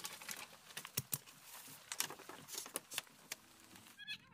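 Irregular light taps and clicks over a faint hiss, with a brief high, gliding call near the end.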